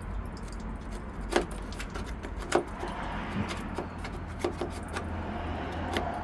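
A screwdriver clicking and scraping against the metal drain holes under a Mercedes-Benz Sprinter van's body as they are poked clear of dirt: a few short sharp metallic clicks over a steady low rumble.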